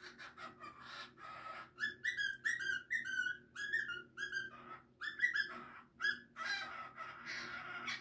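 Cockatiel whistling and chattering: quick runs of short whistled notes, mixed with scratchy warbling about a second in and again near the end.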